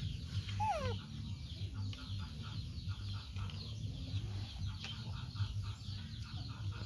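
Chickens clucking, with one short falling call under a second in and a run of quick, evenly spaced clucks around the middle, over a steady low hum.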